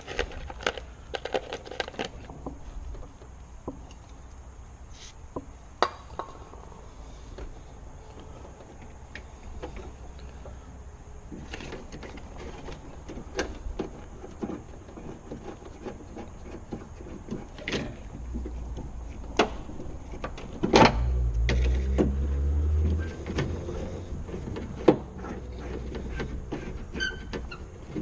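Scattered clicks and knocks of metal and plastic as the rear door's outside handle and its linkage rod are fitted and worked by hand inside the open door shell. A louder knock with a low rumble comes about three-quarters of the way through.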